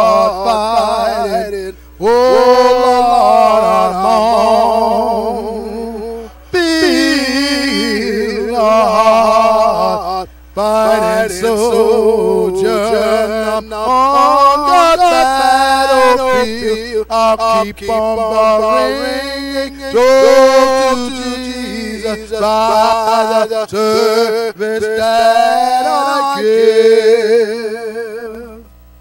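A man singing solo and unaccompanied through the church's microphone, in long sung phrases with a strong wavering vibrato and brief breaths between them. The singing stops near the end, leaving a faint electrical hum.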